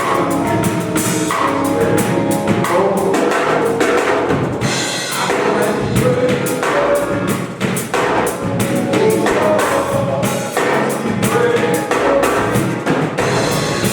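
Church song: singing over a band, with a drum kit keeping a steady beat.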